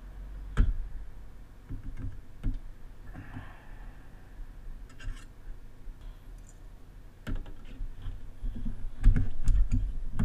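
Scattered clicks and clacks of a motherboard's heatsink and small parts being handled and pressed into place by gloved hands during reassembly, with a steady low hum beneath.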